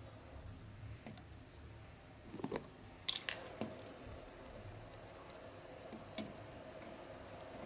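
Faint handling noises: a few small clicks and taps, bunched together about two and a half to three and a half seconds in and once more near six seconds, over a low steady hum.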